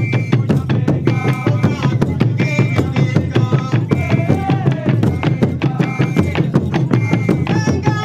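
Music of fast, steady drumming, with a high melody line of held, bending notes over it.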